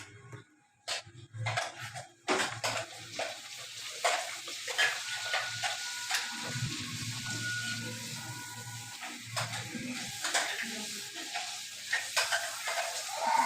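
Sesame papad deep-frying in hot oil in a kadhai, sizzling steadily from about two seconds in, with scattered taps and scrapes of a utensil against the pan.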